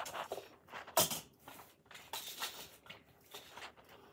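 Things being handled and set down on a desk and its wooden storage boxes: a sharp knock about a second in, then quieter rustling and light clatter.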